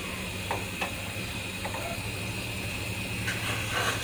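Steady hiss with a low hum under it from the pot of chicken and potato curry on the stove, with a few faint light clicks.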